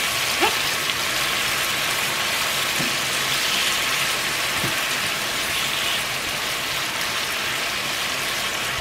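Sliced beef sizzling steadily in hot oil and a caramelised sugar and soy sauce in a frying pan, stirred with a wooden spatula.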